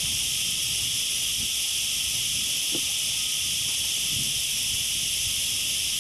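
Steady, high-pitched insect chorus, holding constant throughout, with a couple of faint clicks from a lure and pliers being handled.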